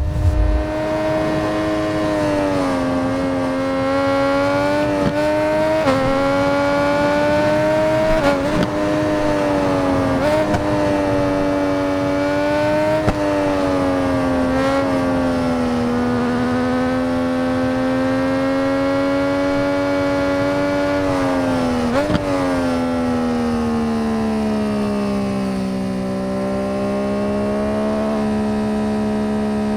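MV Agusta 800 RR's three-cylinder engine running with a steady, even drone, its pitch shifting slightly up and down with a few brief breaks. Near the end the pitch sags lower, then starts rising again.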